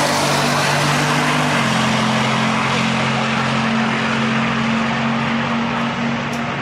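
Turbocharged 1500 pickup and an S10 running at full throttle down a drag strip. The engine note steps down at a gear shift about a second and a half in, a high turbo whistle fades away within the first second, and the sound then holds steady as the trucks pull away.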